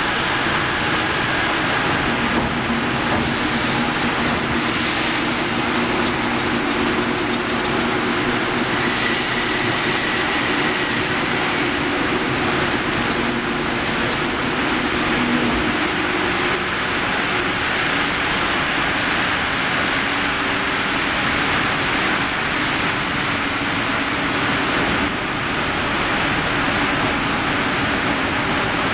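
Section rolling mill for angle steel running: a steady, loud industrial din from the roll stands and their drives, with hissing cooling water and steam as the hot steel bar passes through the rolls. A low hum runs under it for roughly the first half.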